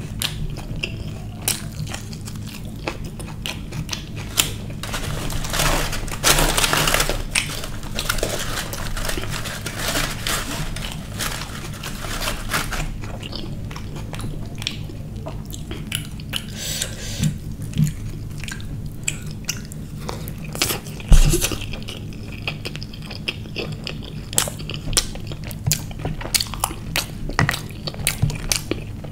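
Close-miked eating sounds: a man chewing and crunching on food, naan tearing, and small clicks of fingers against plates, over a steady low hum. One sharp knock about two-thirds of the way through stands out above the rest.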